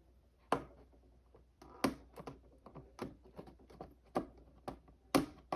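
A toy's cardboard packaging being picked open with a small plastic toy piece: a run of about ten irregular sharp clicks and taps, with light handling rustle between them.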